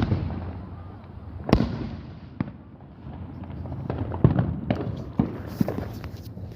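Fireworks going off: a loud bang at the start and another about a second and a half in, each trailing off in a low rumble. From about four seconds in comes a quick run of sharp crackling pops.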